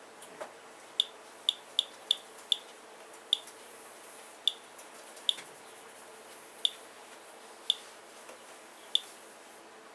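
Geiger counter clicking at random, uneven intervals, about eleven sharp clicks in ten seconds, each one a detected radiation count from a rainwater sample. A faint steady hum runs underneath.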